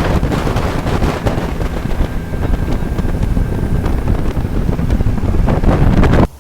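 Wind buffeting the microphone: a loud, rumbling rush with hiss over it that cuts off suddenly near the end.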